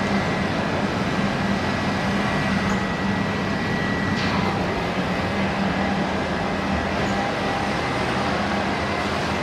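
Steady mechanical rushing noise of workshop machinery, with a constant low hum and a faint high whine. There is a short tap about four seconds in.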